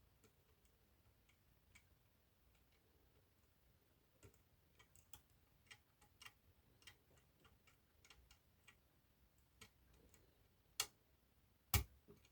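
Faint, irregular metal ticks and clicks of a pick working the levers inside an eight-lever lock, getting busier after a few seconds, with two sharper clicks near the end.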